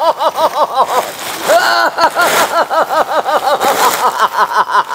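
High-pitched cackling laughter: a fast run of short syllables, each rising and falling in pitch, with a longer drawn-out one about a second and a half in.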